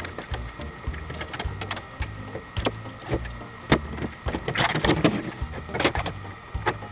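Steel Erector set girders and strips clicking and clinking as they are handled and fitted together, a run of sharp metal clicks that is busiest a little past the middle, over low background music.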